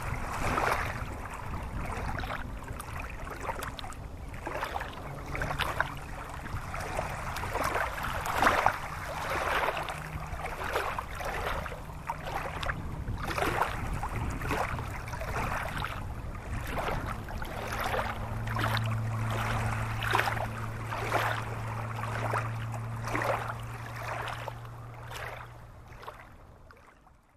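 Shallow stony stream babbling over rocks: a steady rush of water broken by frequent small splashes. A low steady hum comes in about two-thirds of the way through, and everything fades out at the end.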